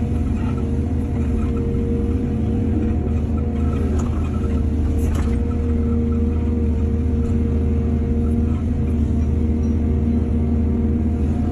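Heavy diesel earthmoving machinery running steadily with a deep rumble and a constant engine tone, with a couple of faint knocks around four and five seconds in.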